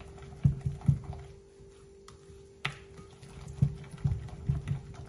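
Silicone-coated whisk beating thick pancake batter in a glass bowl: irregular soft knocks and wet scrapes as the whisk strikes the bowl, with one sharper click a little past halfway. A steady low hum runs underneath.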